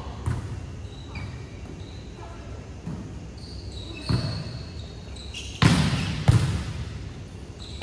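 Volleyball rally: the ball is struck several times, the two loudest hits coming close together past the middle, with sneakers squeaking briefly on the court floor in between.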